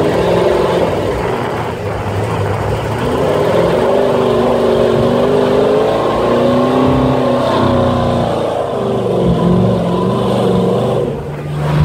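Ford Lightning pickup's V8 engine revving as the truck drives through mud, its pitch rising and falling; it eases off briefly near the end.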